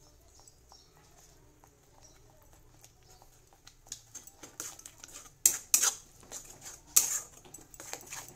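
A steel spatula scraping and clinking against an aluminium kadhai as thick masala paste is stirred. Faint at first, then a run of sharp scrapes and knocks from about four seconds in, loudest in the second half.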